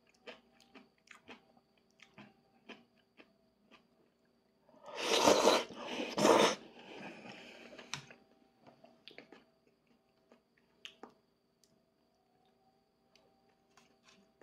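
Eating udon noodles: small chewing and mouth clicks, with a loud noisy slurp in two pulls about five seconds in, then more chewing.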